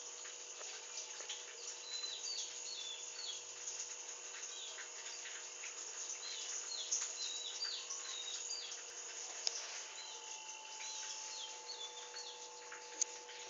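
Small birds chirping: short high chirps in quick runs of three or four, repeating every few seconds over a steady hiss and a low hum.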